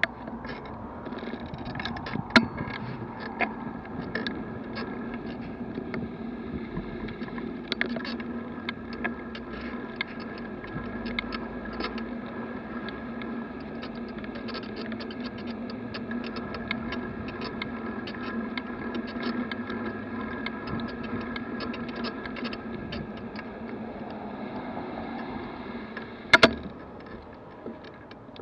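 Bicycle ride heard through a bike-mounted camera: road rumble with frequent small rattling clicks and a steady hum. There are two loud knocks, one about two seconds in and one near the end.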